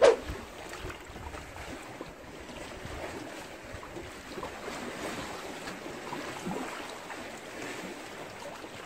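Sea water washing against the tetrapods of a breakwater as a steady wash, with some wind on the microphone.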